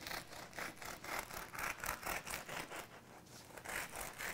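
A knife sawing through the crust of a sourdough baguette in quick, rasping back-and-forth strokes.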